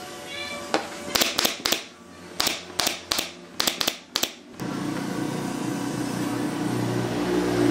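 Pneumatic brad nailer firing about ten sharp shots in quick succession, nailing pine pallet boards down to plywood. The shots stop about four and a half seconds in, leaving background music.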